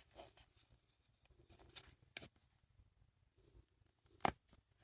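Baseball trading cards being handled and flipped through: faint rustling with two short, sharp clicks, one about two seconds in and a louder one near the end.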